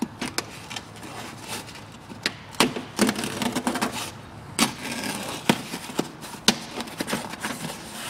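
A sharp blade cutting the inner door membrane of a Fiat 500, with the membrane being pulled back from the door: irregular crackles, clicks and rustles.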